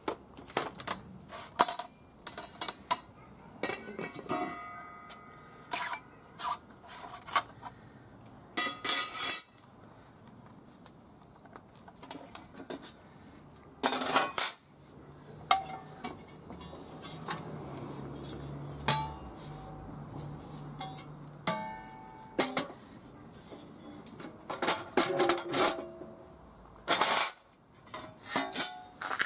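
Metal parts of a homemade fire pit and cooking stand being handled, with many sharp metal knocks and clinks, some ringing briefly. A low steady hum runs for several seconds in the middle.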